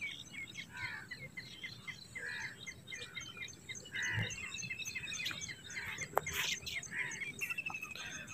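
Several small birds chirping and calling, with a rapid trill about halfway through and again near the end.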